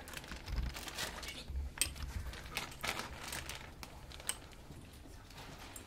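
Scattered rustling with light clicks and a few dull, low knocks in the first two seconds: a Weimaraner detection dog and its handler moving about while the dog searches.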